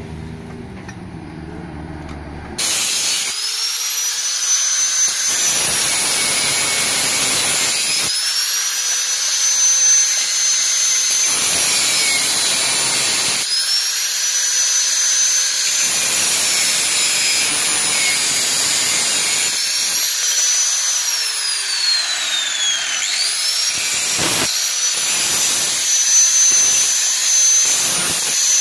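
Angle grinder cutting through a metal exhaust pipe. It starts about two and a half seconds in and cuts in several long passes. Its high whine sags between passes and once slides down before the grinder spins up again.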